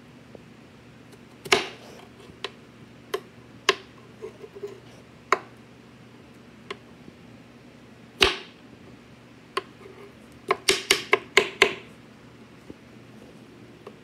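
Kitchen knife chopping down onto a wooden cutting board while strawberries are sliced and hulled: single sharp knocks a second or so apart, then a quick run of about six chops near the end.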